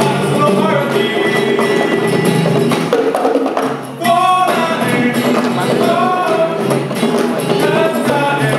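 A live band playing a song: voices singing over guitars and hand-played bongos. The sound dips briefly about halfway through.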